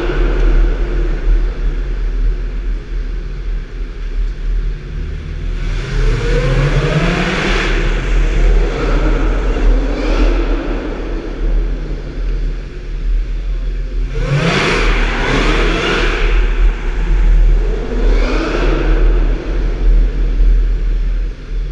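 Supercharged 4.6-litre V8 of a Ford Mustang SVT Cobra idling, with three hard revs: one about six seconds in, a sharper one around the middle, and another a few seconds before the end. The sound echoes inside a parking garage.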